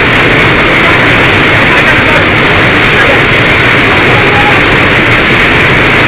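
Steady, loud rush of a waterfall pouring into its pool: an unbroken wash of falling water with no breaks.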